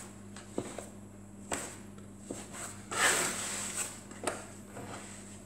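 Plastic dough scraper cutting pizza dough into portions on a wooden board: a few light knocks against the board, and a scraping rasp about three seconds in.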